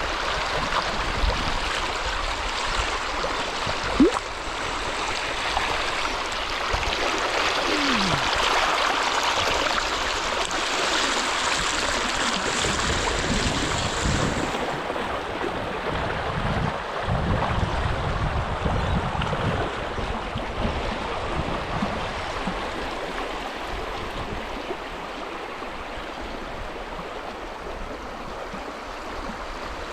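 Steady rush of flowing river water, with wind gusting on the microphone at times and a single sharp knock about four seconds in.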